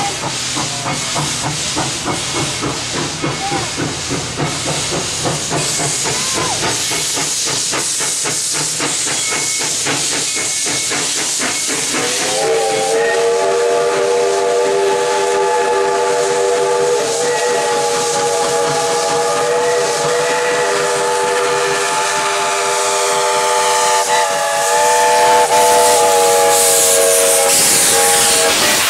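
Baldwin narrow-gauge steam locomotive hissing steam, with a steady run of rhythmic steam chuffs. About 12 s in its chime steam whistle opens into one long multi-note blast that holds for some 16 s with a brief break, while loud hissing steam from the open cylinder cocks swells near the end.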